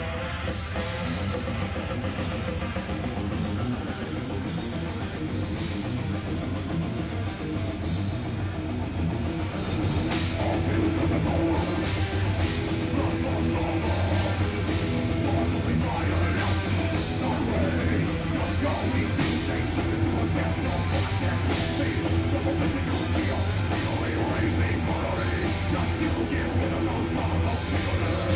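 A heavy metal band playing live, with electric guitars and a drum kit. It gets louder about ten seconds in.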